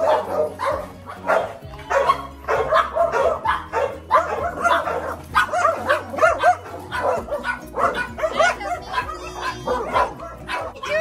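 Small dog barking again and again in short, yappy barks, about two a second.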